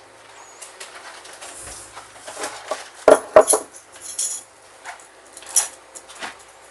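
A spoon scraping and clinking in a bowl as soft biscuit dough is scooped out and dropped onto a stew filling, with quiet wet dabs of dough. The loudest sounds are two sharp knocks about three seconds in.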